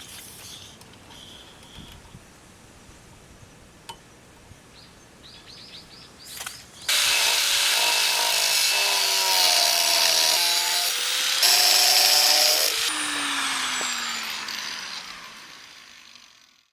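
A power tool cutting under load from about seven seconds in, with a wavering whine over a harsh rasp and a short break before twelve seconds. It is then switched off and winds down with a falling whine that fades out.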